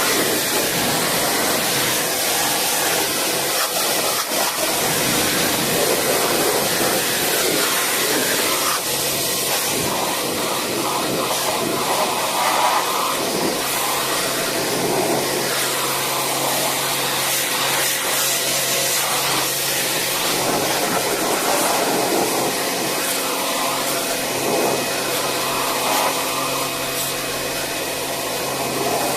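Steady, loud rushing of air from a motor-driven blower, with a faint low hum joining about halfway through.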